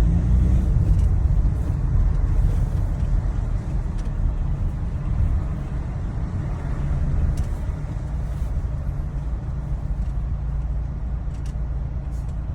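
Ford Transit van driving on a test drive after a clutch repair, a steady low rumble of engine and road noise, running normally.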